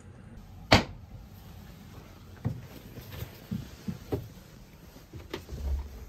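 A wooden cabin door clicks sharply once, about a second in, followed by a run of softer knocks and thumps in a small wood-panelled room.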